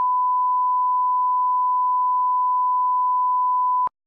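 Censor bleep: one steady, pure, single-pitch beep tone that masks everything else and cuts off abruptly near the end.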